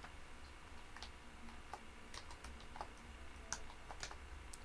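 Faint, irregular keystrokes on a computer keyboard: single clicks scattered a fraction of a second to a second apart as code is typed.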